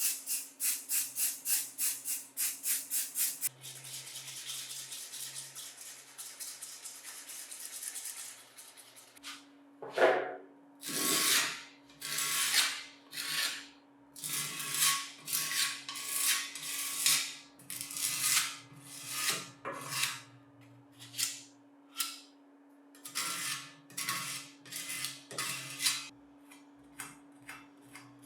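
Fast, even rubbing strokes on metal, about four a second, then a steady hiss for about five seconds, then slower, uneven scrubbing strokes.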